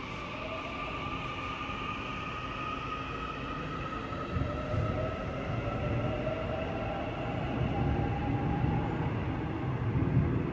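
Seoul Subway Line 7 electric train pulling out of an underground station, its traction motors whining in several tones that rise slowly in pitch as it accelerates. Wheel rumble on the rails grows louder from about four seconds in and is loudest near the end.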